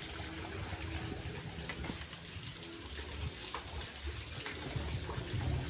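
Steady rush of flowing water, an even hiss with a low rumble under it.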